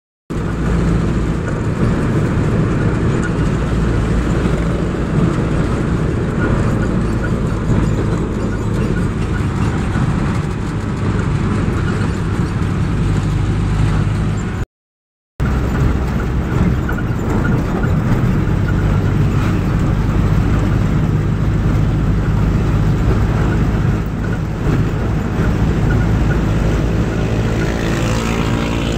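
Jeepney engine running steadily on the move, heard from inside the vehicle with road noise. Just before halfway it cuts to silence for under a second, then resumes.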